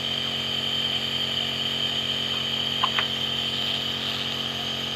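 Compressor nebulizer running with a steady hum, and two short ticks about three seconds in.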